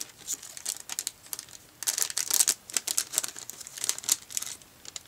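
Thin clear plastic packaging crinkling and rustling in the hands as the microfibre cleaning cloth is handled and unwrapped, in irregular crackles, loudest about two seconds in.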